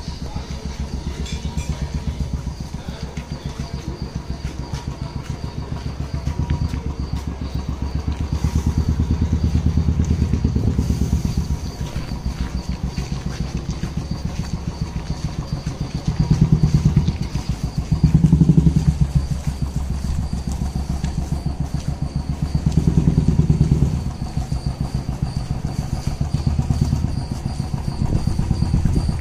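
Motorcycle engine running at low speed with a steady rapid thumping, opened up briefly three times in the second half.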